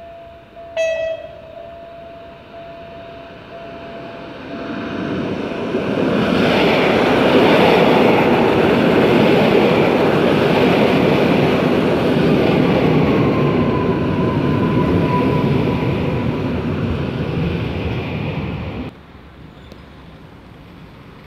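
Koleje Mazowieckie electric multiple unit gives one short horn toot about a second in, then comes into the station and runs along the platform with loud wheel and running noise for about thirteen seconds. A thin whine rises and levels off partway through the pass. The noise cuts off abruptly about nineteen seconds in, leaving a low hum.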